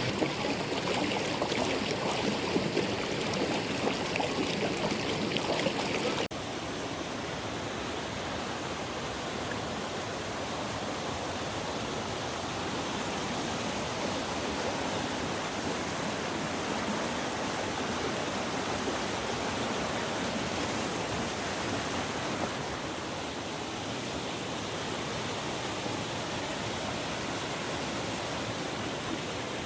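Valley stream flowing steadily. About six seconds in, it cuts to a second recording of the water that is a little quieter and more even.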